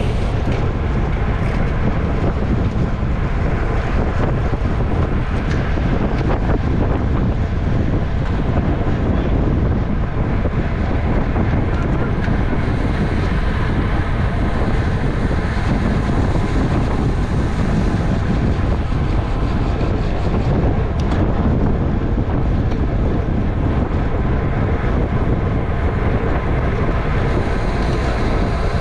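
Steady wind rush over the microphone of a bicycle riding at race speed.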